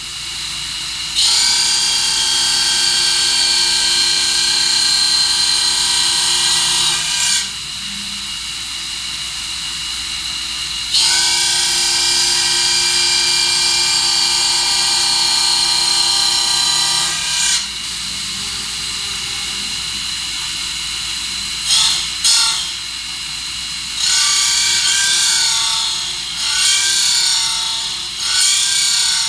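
CNC profile grinder's wheel rough-grinding a profile knife. There are two long passes of about six seconds each with a steady high ringing tone, the wheel running quieter between them. Near the end come two brief touches and a string of shorter passes that swell and fade.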